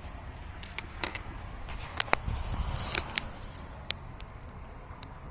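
Handling noise: a scattered series of light clicks and small metallic rattles, with a denser cluster of sharper clicks about two to three seconds in, over a low steady background hum.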